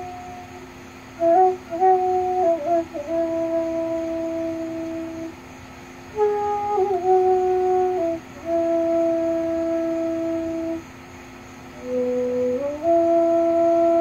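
Bamboo transverse flute played slowly and freely: long held notes with small slides and turns between them, in phrases broken by short pauses about five and eleven seconds in. A steady high buzz of cicadas runs underneath.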